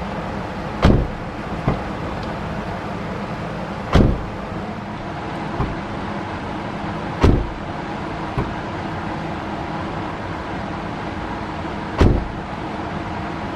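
The repaired front passenger door of a 2009 Nissan Murano being shut four times, each a solid thump, with a lighter click of the handle and latch as it is opened between shuts. The door is latching shut after a repair for not closing.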